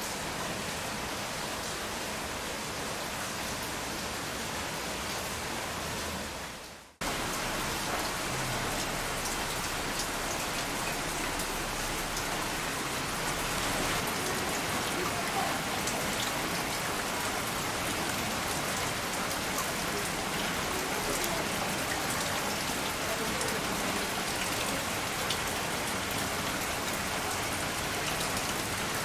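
Heavy rain of an approaching typhoon falling steadily, with scattered sharp drop hits close by. It fades away briefly about seven seconds in and comes back slightly louder.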